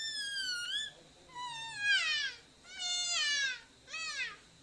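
A boy imitating a cat, giving four high meows in a row, each sliding down in pitch, the last one short.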